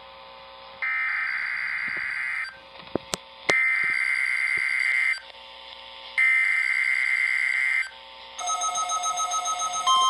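NOAA Weather Radio's digital SAME header, three harsh data bursts of about one and a half seconds each with short gaps between them, coming through a Midland weather radio's speaker and marking the start of a required weekly test. Near the end a rapid pulsing alert beep starts up.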